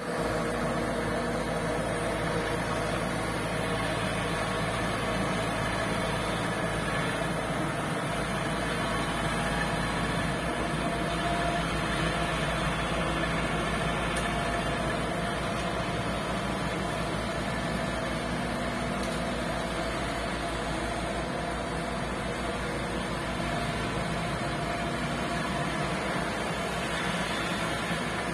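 Heavy engine running steadily at a constant speed, a continuous drone that does not change, as from machinery working on a barge.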